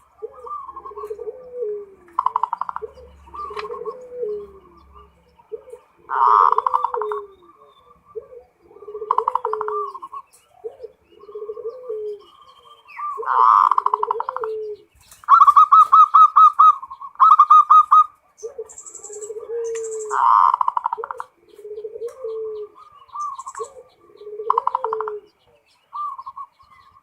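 Zebra doves (perkutut) cooing in full song, phrase after phrase every second or two, with a run of fast stuttering notes about halfway through.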